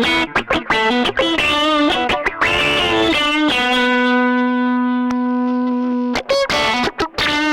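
Electric guitar played through a Roland AG-5 Funny Cat pedal, a '70s harmonic mover and soft distortion sustainer. Short choppy notes give way about three and a half seconds in to one long sustained note, which stops about six seconds in before the choppy playing resumes.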